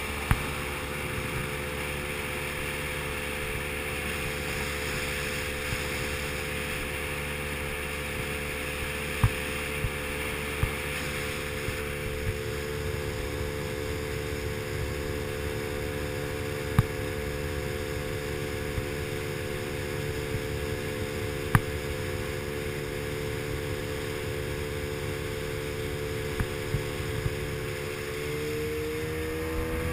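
Tiller-steered outboard motor driving an aluminium boat at a steady cruising speed, with water rushing past the hull and wake. Near the end the engine note rises a little. A few sharp knocks are heard along the way.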